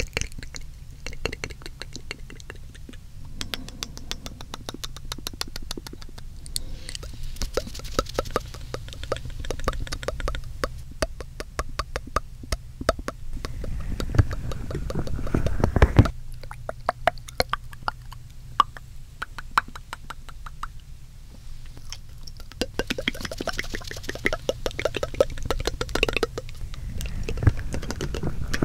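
Layered wet mouth sounds close to the microphone: rapid tongue clicks and smacks, many a second, with a few breathy stretches.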